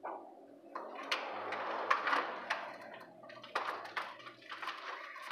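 Electrical wires in a distribution board being handled and pulled, rustling and scraping, with several sharp clicks and taps against the panel.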